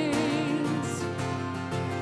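Live church worship band music. A singer holds a note with vibrato, which ends under a second in, and the band's instruments carry on.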